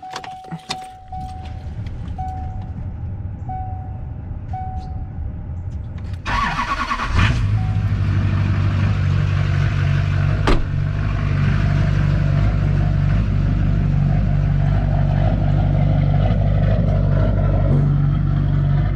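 A truck's warning chime dings about once a second. About six seconds in the starter cranks briefly and the engine catches, then runs at a steady idle, with a single sharp knock a few seconds later.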